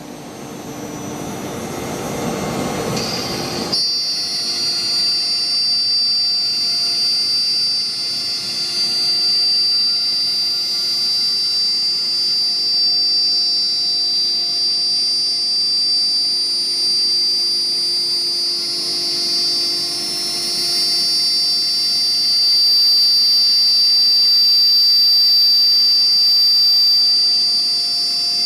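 BMG 1325 CNC router running, with a steady high-pitched whine. Over the first four seconds a noisy rush builds, then changes abruptly into the steady whine, which holds for the rest of the time.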